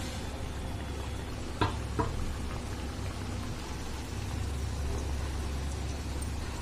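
Hot oil sizzling steadily in a kadai as semolina golgappa puris deep-fry and puff up, over a low steady hum. Two sharp knocks come close together about a second and a half in.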